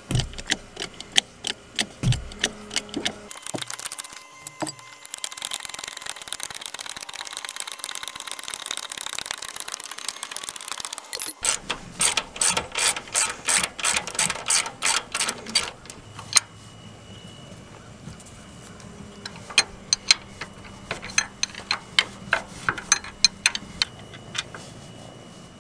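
Hand ratchet wrench clicking in quick runs as it turns out the bolts that hold the garden tractor's engine to the frame. A steady hiss lasting about six seconds comes in the first half.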